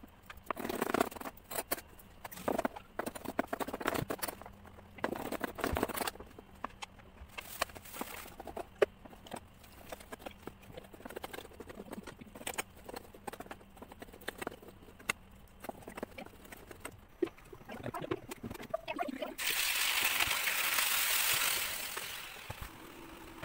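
Knife chopping on a plastic cutting board, cutting potatoes and then beef: irregular sharp taps and knocks. About three quarters of the way in, beef starts sizzling loudly in a hot pot as it is stir-fried with a wooden spatula, then settles to a quieter steady sizzle near the end.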